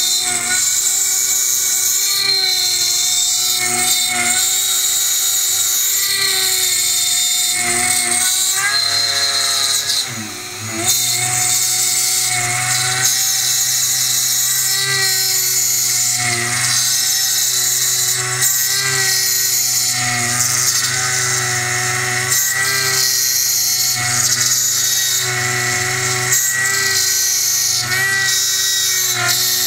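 Milling machine cutting a 7075-T6 aluminium bicycle chainring: a steady high-pitched spindle whine with the hiss and chatter of the cutter in the metal. About ten seconds in the sound drops briefly and the pitch bends before the cut resumes.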